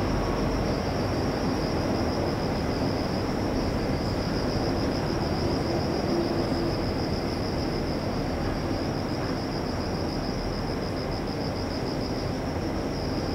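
Night ambience: a steady low rumble under a continuous high-pitched, pulsing insect trill, like crickets.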